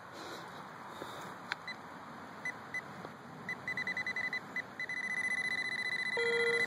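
Handheld metal-detecting pinpointer probing a dig hole: a few scattered high beeps, then rapid beeping about eight a second, then a continuous tone as the probe tip closes on a buried metal target. A lower tone joins briefly near the end.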